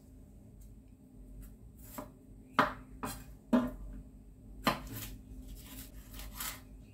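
Chef's knife slicing a red chili lengthwise on a bamboo cutting board: a series of sharp knocks of the blade on the wood at uneven intervals, the loudest about two and a half and three and a half seconds in.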